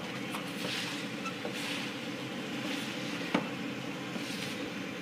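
Backhoe loader's diesel engine running steadily, with bursts of scraping and one sharp knock a little over three seconds in as old roofing is torn off the building.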